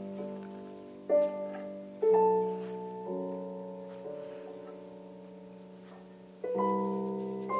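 Background piano music: slow chords, each struck and left to ring out.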